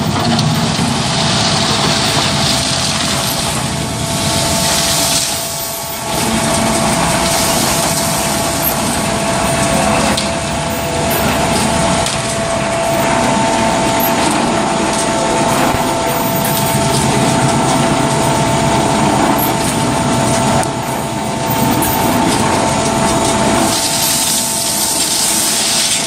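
Concrete mixer pump running steadily: a constant machine hum with a steady whine through it, and a louder hiss a couple of seconds in and again near the end.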